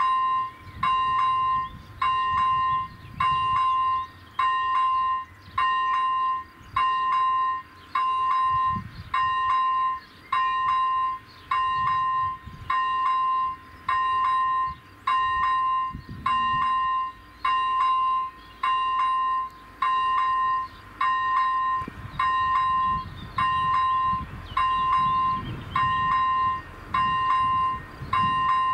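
Czech level crossing's electronic warning bell ringing with its flashing red lights: an even, repeated ding a little more than once a second, warning of an approaching train. A low rumble builds in the last several seconds.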